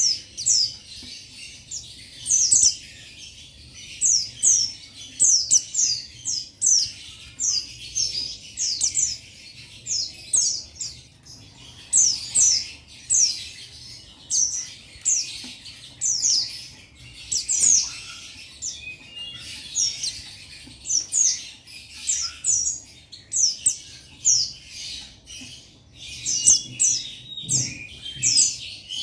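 Buxtoni white-eye (pleci buxtoni) singing a long, unbroken run of rapid, high chirps, each note sliding downward in pitch. This is the sustained male song used to call out rivals.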